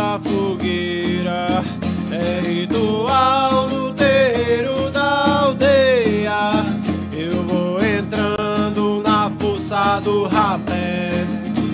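Music: a strummed acoustic guitar with a voice singing a sliding melody over it.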